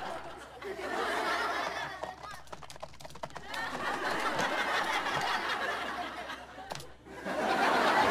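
Sitcom laugh track of audience laughter rising and falling in three swells, loudest near the end, over rapid clacking on a laptop keyboard.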